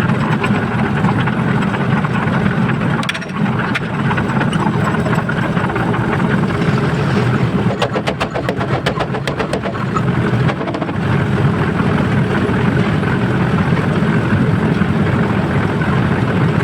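A steady engine drone, with a quick run of clicks or ticks about eight to ten seconds in.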